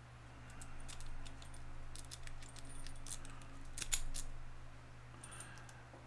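A Sparrows City Rake scraping and clicking against the pins inside a laminated steel padlock, held under a tension wrench while it is raked open. The faint, irregular metallic ticks are loudest about four seconds in, with a few more clicks near the end.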